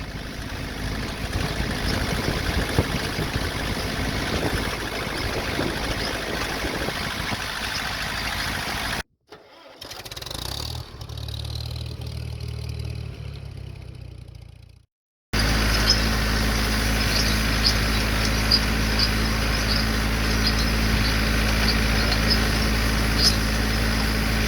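Tractor engines running in three short cut-together clips: a noisy first stretch, a quieter one with a low engine hum after a cut about nine seconds in, then a steady engine drone with light, irregular ticking from about fifteen seconds in.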